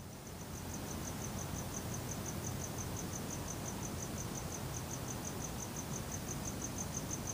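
A cricket chirping steadily in a high, even pulse of about five chirps a second, over a faint low background hiss.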